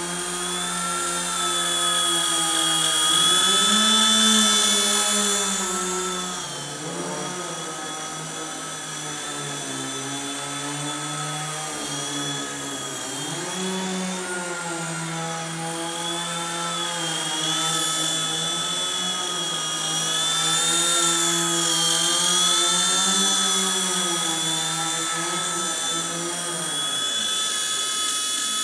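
4-channel micro RC helicopter (H120), a single-main-rotor model, flying with its battery-powered electric motor and rotor whining steadily. The pitch rises and falls as the throttle is worked. It is loudest around four seconds in and again about twenty seconds in.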